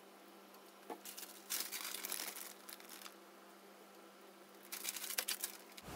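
Soft crinkling of a plastic bonito-flake packet in two short spells, about a second and a half in and again near the end, as flakes are pinched out and sprinkled by hand; a light click about a second in.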